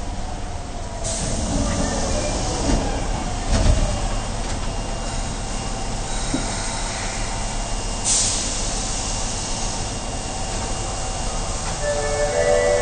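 Osaka Metro 22 series subway train standing at the platform as its doors shut, with a loud thud about three and a half seconds in. A short, sharp burst of air hiss follows about eight seconds in over a steady rumble, and a set of steady chime-like tones starts near the end.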